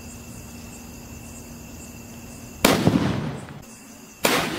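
Two loud firecracker bangs about a second and a half apart, each dying away over about a second. The second, near the end, is a large sutli bomb (twine-wrapped firecracker) going off after its fuse burns down.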